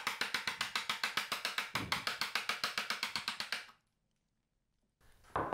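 A chisel being tapped down into a wooden workpiece: a rapid, even run of sharp taps, about nine a second, that stops abruptly a little before four seconds in.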